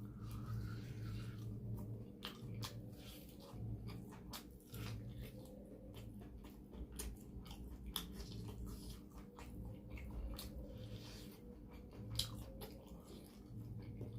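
Close-miked chewing and mouth sounds of a person eating, many short wet smacks and clicks, over a steady low hum.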